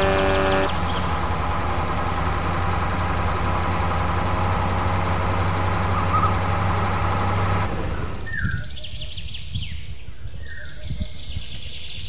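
An engine hums steadily, with a short pitched tone at the very start, and cuts off suddenly about eight seconds in. Birds chirp through the remaining seconds.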